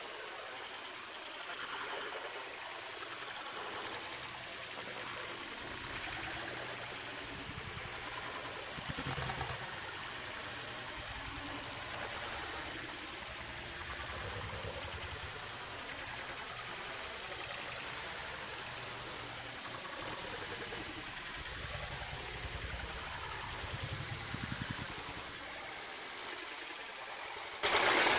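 Water splashing and falling from a tiered stone fountain into its basin, a steady, dull wash of noise that turns suddenly louder and brighter right at the end.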